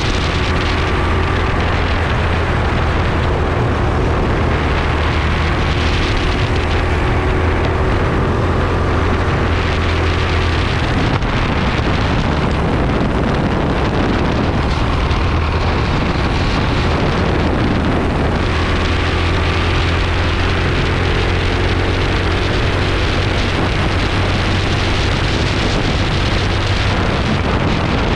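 Go-kart engine running hard on track, its pitch rising and falling as the driver lifts and accelerates through corners, with wind noise on the microphone.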